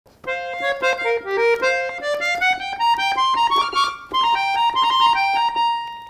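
Fisitalia chromatic button accordion playing a quick run of short notes that climbs in pitch, with a brief break about four seconds in, then a few held notes that fade out near the end.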